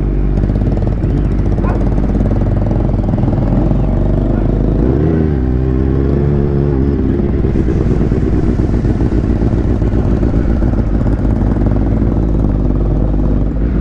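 Motorcycle engine running steadily while riding, its pitch rising and falling for a couple of seconds around the middle as the throttle changes.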